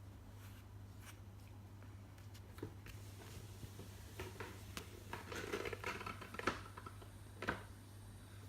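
A small plastic grooming brush scratching through a plush toy's fur, with faint rustling and light clicks as the toy is handled; the strokes get busier and louder a little past the middle.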